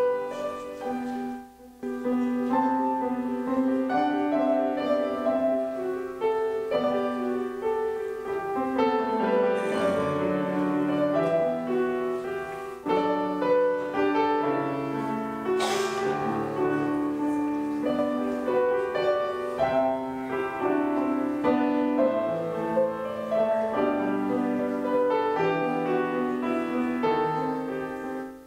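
Grand piano played solo: a melody over sustained chords, with a short break about a second and a half in.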